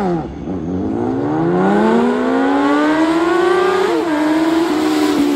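Car engine dropping back from a rev, then accelerating hard, its pitch rising steadily for about three seconds, with a brief dip about four seconds in, before holding high.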